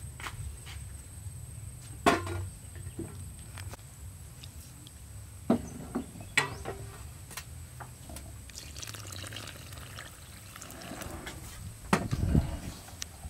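Liquid poured into a large stainless steel bowl of flour, with sharp knocks and clinks against the bowl about two seconds in and again around five to six seconds in, loudest near the end.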